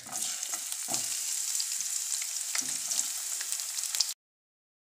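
Sliced onions dropped by hand into hot oil already tempered with cumin, mustard seeds and dried red chillies, sizzling with scattered crackles. The sound cuts off suddenly near the end.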